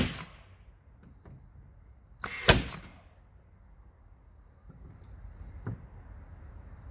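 Pneumatic finish nailer firing 15-gauge nails, two sharp shots about two and a half seconds apart, each with a short hiss of air, then a lighter knock near the end.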